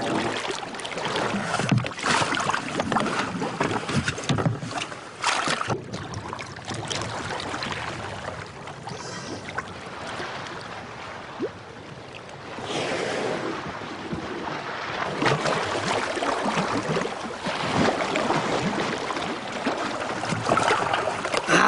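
Choppy open sea water splashing and sloshing in uneven swells, with wind buffeting the microphone.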